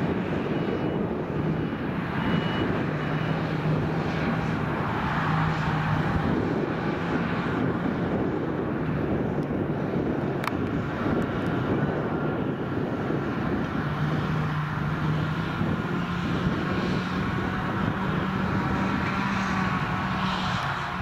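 Forage harvester and tractor diesel engines working a silage field: a steady engine drone with a low hum. A high beeping sounds for the first few seconds.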